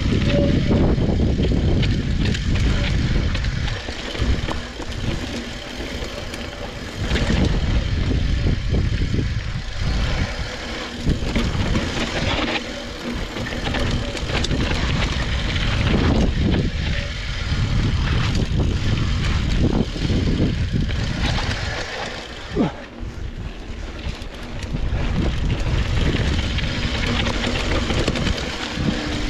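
Wind rushing over a GoPro's microphone, with the rumble and rattle of a 2014 Yeti 575 mountain bike rolling over a dirt trail. It rises and falls with speed, and a few sharp knocks come from bumps.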